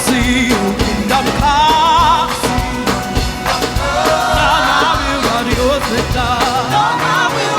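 Live gospel praise music with a band playing a steady beat and voices singing a wavering, melismatic line over it.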